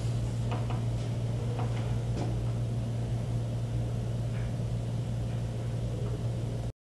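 Fusion splicer running its heat-shrink cycle: a steady low hum with a few faint light clicks from handling, stopping abruptly near the end.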